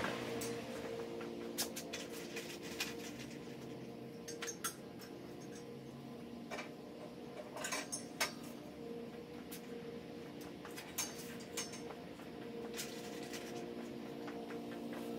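Light metal clinks and knocks, scattered a few seconds apart, as steel aerator parts (spools, bushings and spacers) are handled and slid onto the axle. A steady low hum runs underneath.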